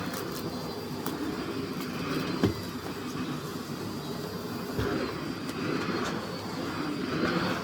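Miele CX1 Blizzard bagless vacuum cleaner running steadily, a thin high whine over its motor and airflow noise, with two dull knocks about two and a half seconds apart as the floor head is worked.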